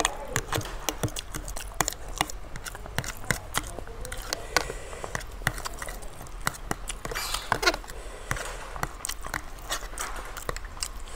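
Close-up eating sounds: chewing and wet mouth smacks, with a metal fork clicking and scraping against a plastic container as it picks up ramen noodles. The clicks come in a quick, irregular run throughout.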